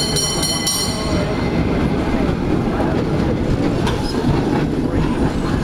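San Francisco cable car rolling past on its rails with a steady low rumble, and a high metallic ringing during the first second.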